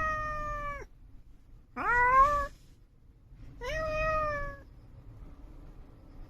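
A calico cat meowing three times, each a drawn-out call of under a second, the middle one rising in pitch.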